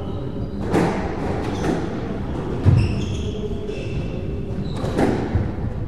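Squash rally: the ball struck by rackets and smacking off the court walls, a sharp hit every second or two, the loudest near the middle. Short high squeaks of court shoes on the wooden floor between the shots.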